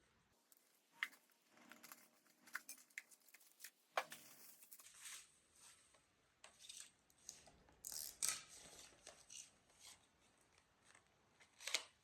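Faint scattered clicks, taps and short rustles of small objects being handled, with a few sharper clicks about four seconds in, around eight seconds in and near the end.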